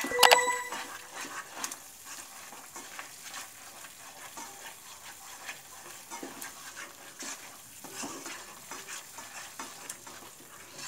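A spatula stirring and scraping a thick masala paste with beaten yogurt in a nonstick kadai, with a light sizzle of frying. A short ringing ding sounds right at the start.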